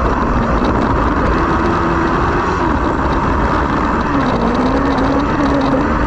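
Race buggy engine running hard, heard onboard. Its note wavers, dips about four seconds in and climbs again, over a steady rushing noise.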